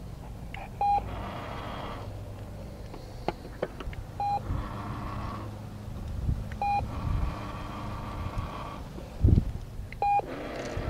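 A Treat & Train remote treat dispenser beeping four times, a few seconds apart. Each beep is followed by about a second of the machine running and rattling as it dispenses kibble into its tray.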